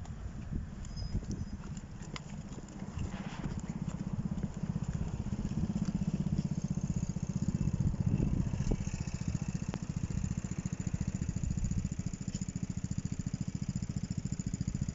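An engine running steadily with a low, fast, even pulse, growing louder about three seconds in.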